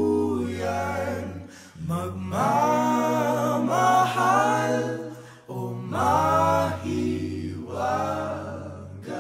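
Several voices singing in close harmony with almost no instrumental backing. They hold notes in phrases of a couple of seconds each, over a low sustained note.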